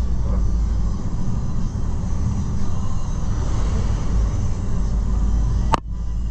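Steady low rumble of a shuttle's engine and road noise heard from inside the moving vehicle, with one sharp click near the end.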